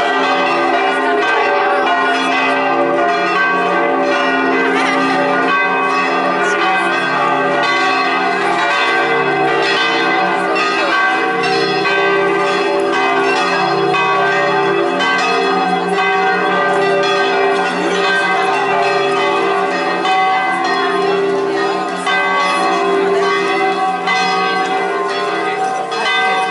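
Several church bells ringing together in a loud, continuous peal, their tones overlapping without a break.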